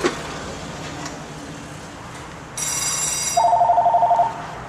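Electronic ringer going off: a high buzzy trill starts about halfway through, then a louder, rapidly warbling two-tone ring lasts about a second.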